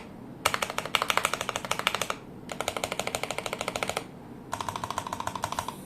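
Fast typing on a T-Dagger Bora mechanical keyboard with lubed KTT Sea Salt switches and PBT keycaps: three quick runs of keystrokes, each about a second and a half, with short pauses between. A steady low background noise runs underneath.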